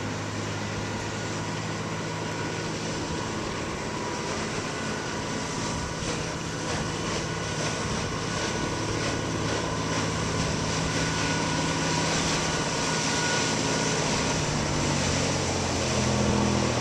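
Lobster boat engine running steadily as the boat comes closer, a low hum with water noise that grows gradually louder toward the end.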